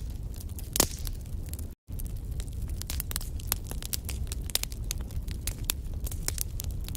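Fireplace fire crackling and popping in quick irregular clicks over a low steady rumble, with one louder pop about a second in. The sound cuts out completely for a split second just before two seconds in.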